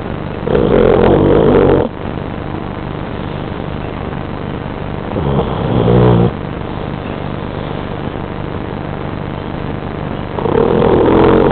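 A sleeping dog snoring: three loud snores about five seconds apart, each about a second long, the second one deeper than the other two, over a steady low background hum.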